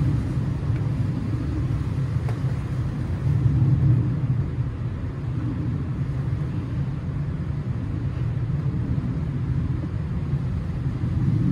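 A steady low rumble, without clicks, rhythm or pitch changes.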